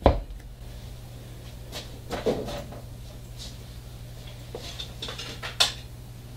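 A spring clamp snapping shut on a wooden miter box, a sharp knock, followed by a few lighter knocks and clicks of handling on the bench.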